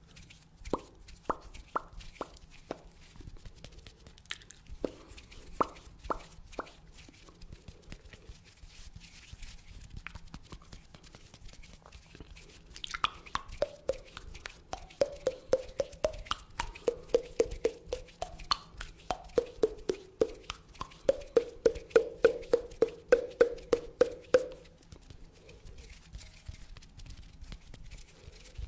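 Close-up mouth pops made with the hands cupped at the lips. A few single pops are spaced out in the first several seconds. From about halfway in, a fast run of hollow, pitched pops comes at roughly five a second and stops a few seconds before the end.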